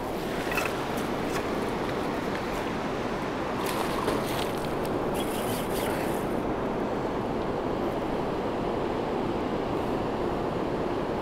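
Steady rushing of a broad, fast-flowing river, with a few faint clicks about four and five seconds in.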